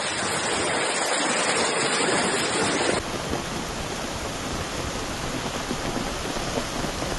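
Steady rushing and splashing of floodwater with rain. About three seconds in the noise changes character abruptly, as the scene switches from a vehicle ploughing through a flooded street to muddy runoff pouring across open ground.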